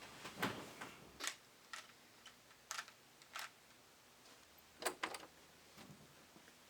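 Rubik's Cube being turned by hand: a string of short plastic clicks at irregular intervals, a few coming in quick pairs.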